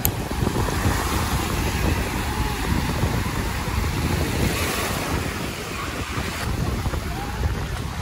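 Wind blowing hard across the microphone: a rough, steady rush with low, fluttering buffeting that starts abruptly.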